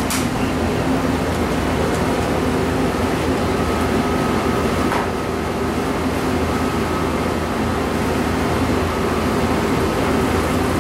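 Steady machine hum and whir of commercial kitchen equipment, with a thin constant high tone over a low drone; a faint click about five seconds in.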